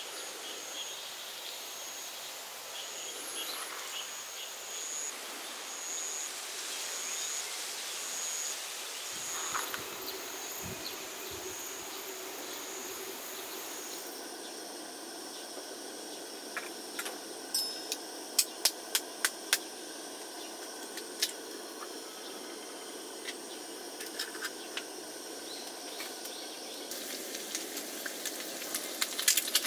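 Steady outdoor hiss with an insect calling in short high chirps about once a second. About halfway there is an abrupt change, and after it come scattered sharp clicks and taps.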